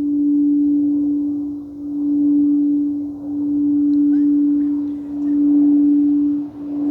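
Singing bowl sounding one steady low tone, its loudness swelling and fading about every second and a half.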